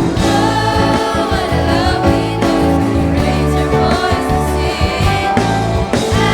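Children's choir singing a worship song over instrumental backing with a steady beat.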